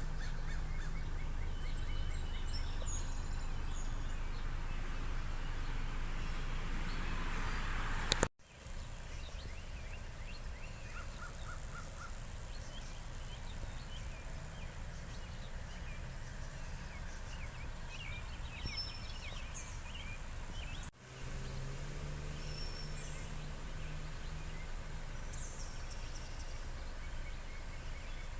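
Outdoor ambience of birds chirping over a steady low hum. It breaks off abruptly twice, with a click at the first break.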